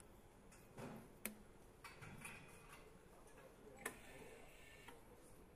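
Faint clicks and light knocks of engine parts being handled and fitted by gloved hands, with two sharp clicks about a second in and near four seconds, and soft rustling between.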